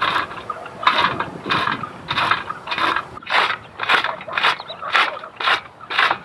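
Rhythmic scraping strokes, about one and a half to two a second, steady and even throughout.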